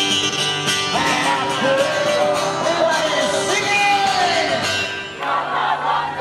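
Live street music: a person singing over guitar.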